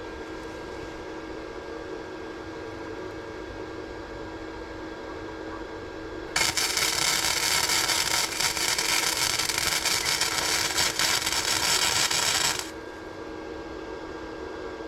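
Electric arc welding a steel bar: over a steady hum, a loud, dense crackle starts about six seconds in, runs for about six seconds and stops abruptly as the arc is broken.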